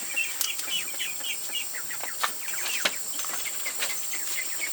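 A crowd of ducklings peeping: many short, high, falling cheeps, several a second, over a steady high insect-like hiss, with a few sharp knocks about two and three seconds in.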